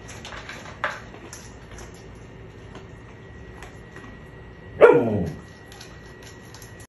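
A husky gives one loud, short call about five seconds in, its pitch dropping steeply; a brief sharp click comes just before one second in.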